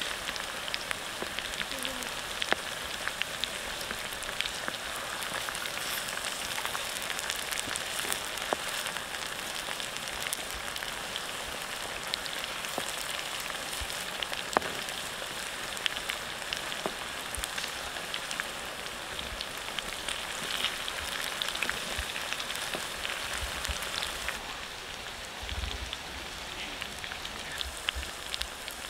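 Stuffed pig intestines frying in a pan of hot oil: a steady sizzle with frequent small pops and crackles.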